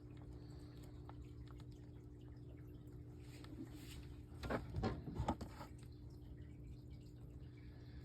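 Bearded dragon crunching a hard-shelled patent leather beetle: a quick cluster of sharp crunches about halfway through, over a faint steady hum.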